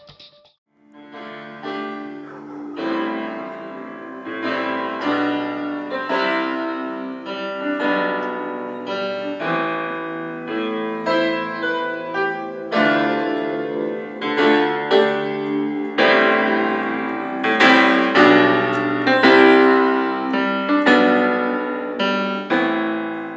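Piano chords played on an electronic keyboard: a slow run of struck, ringing chords that begins about a second in and grows louder in the second half.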